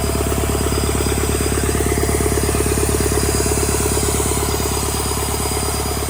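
Freshly rebuilt Doosan D34P four-cylinder diesel engine running steadily on test, with a fast, even firing beat.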